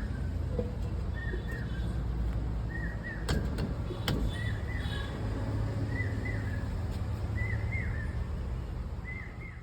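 Low steady background rumble with a small bird chirping short calls again and again, about once a second, and two sharp clicks a little after three and four seconds in. The sound fades out at the very end.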